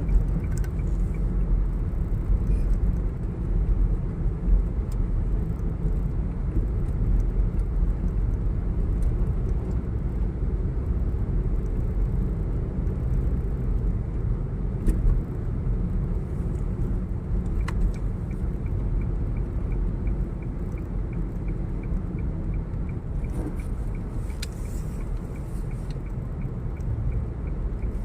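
Steady low rumble of a moving road vehicle heard from inside the cabin, engine and tyres on the road. A faint, evenly spaced ticking runs through the second half.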